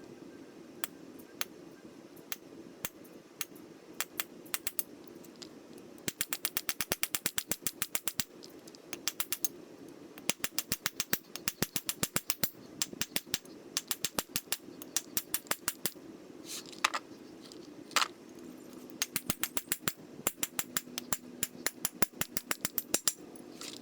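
Hammer tapping a steel pin punch to drive out the pins that hold the screw nut in a Wilton bench vise, metal striking metal. It starts with a few spaced taps, then comes in quick runs of strikes, about six a second.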